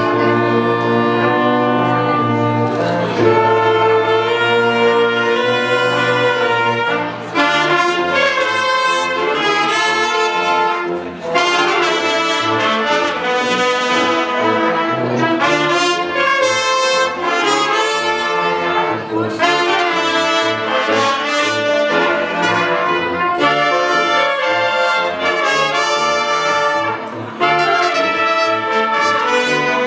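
Wind band of clarinets, saxophones, trumpets, a flute and a sousaphone playing a tune together, with a bass note pulsing on the beat.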